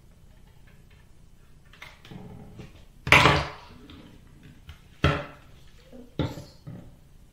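Small hard objects being handled and set down, three clattering knocks about three, five and six seconds in, the first the loudest.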